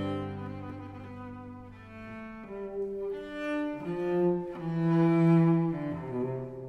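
Slow instrumental background music: long held notes on bowed strings, changing pitch every second or so and swelling and fading.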